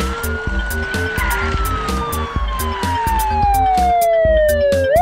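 Police siren sound effect in a slow wail: the pitch holds high, falls slowly for about four seconds, then sweeps sharply back up near the end. Background music with a steady beat plays underneath.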